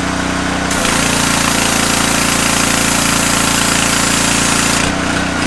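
Powerstroke 3200 PSI gas pressure washer's engine running. About a second in the spray gun is opened and high-pressure water hisses out for about four seconds while the engine note changes under the pump's load, then it drops back to the engine alone.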